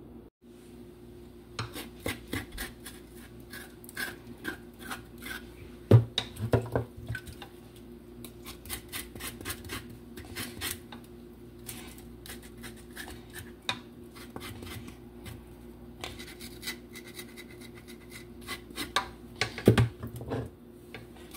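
Knife scraping the roasted brown skin off chunks of goat meat in many short, quick strokes, with a few louder knocks of meat or knife against a metal pot, about six seconds in and again near the end.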